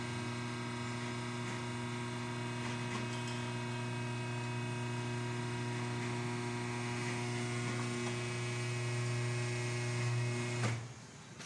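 Steady motor hum at one constant pitch during an aircon leak test, cutting off abruptly about ten and a half seconds in.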